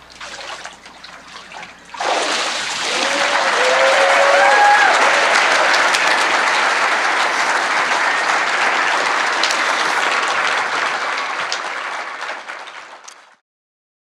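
Water sloshing and splashing in a baptismal tank as a person is immersed and brought up. About two seconds in, a congregation breaks into loud applause with a few whoops and cheers over the clapping, which fades and cuts off near the end.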